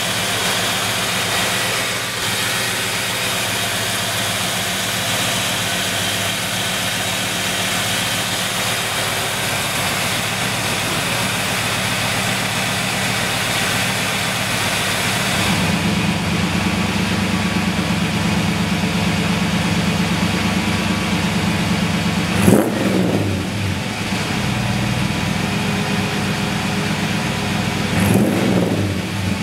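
A 1954 Chevrolet Bel Air restomod's LT1 fuel-injected V8 idling steadily. About halfway through the idle sounds deeper and fuller, and twice near the end the engine is revved briefly, rising and falling back to idle.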